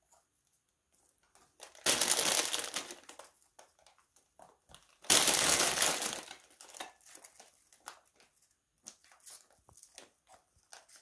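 Plastic bag of vanilla wafer cookies crinkling as a hand rummages in it, in two loud bursts about two and five seconds in. Faint light taps follow in the later seconds.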